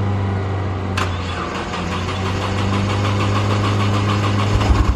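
Nissan GT-R engine idling steadily just after being brought back to life, with a sharp click about a second in.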